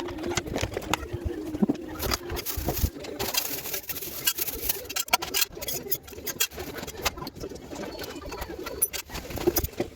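Plastic packaging crinkling and rustling in irregular clicks and crackles as a parcel is handled and opened. A low cooing sound comes and goes underneath.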